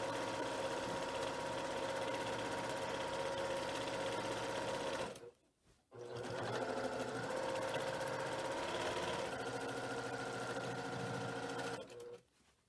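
Brother PQ1500SL sewing machine stitching steadily at speed during free-motion quilting. It stops for about a second midway, starts again, and stops near the end after a short last burst.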